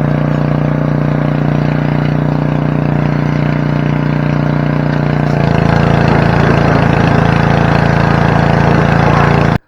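Pressure washer running steadily, an even engine-like drone. Its sound shifts about five and a half seconds in, growing a little louder and rougher, and it cuts off just before the end.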